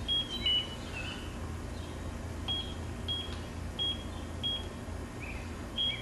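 Electronic real-estate lockbox keypad beeping as a PIN is keyed in: short, high beeps at irregular intervals, about one per key press, some followed by a lower, wavering chirp.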